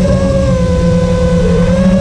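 Brushless motors and propellers of a quadcopter drone whining in flight at a steady pitch that dips briefly near the end, over heavy wind rumble on the microphone.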